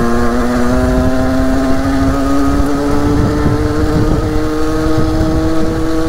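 Derbi 50cc two-stroke dirt bike engine pulling steadily under way, its pitch rising slowly and evenly as it gains speed, over a low rumble.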